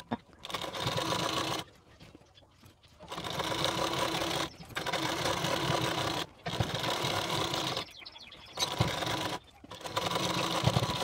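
Domestic sewing machine stitching a folded neckline binding in short runs of one to two seconds, stopping and starting about six times.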